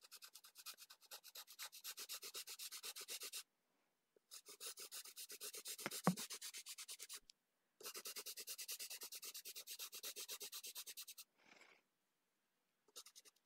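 Colorless blender pencil rubbed over paper in rapid, even back-and-forth strokes, laying down a wax base layer. The strokes come in three runs, with short pauses about three and seven seconds in.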